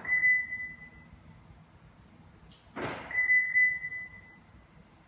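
Dominic Siren Plus car security siren sounding twice, about three seconds apart: each time a short hissing burst, then a high ringing tone that fades away over about a second.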